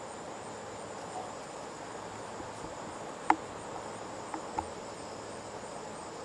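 Crickets chirping steadily in a backyard. A sharp click about three seconds in, and two softer ticks a second later.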